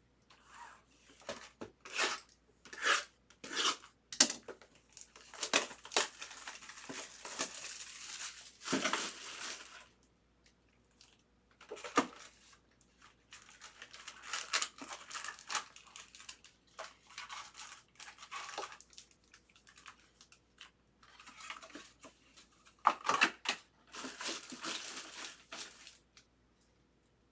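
Plastic packaging crinkling and tearing in several handled stretches, as trading-card packaging is opened. There are short pauses in between.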